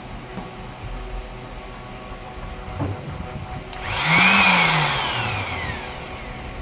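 Electric sander motor switched on briefly: it spins up about four seconds in and then winds down, its pitch falling as it fades, over a steady background hum.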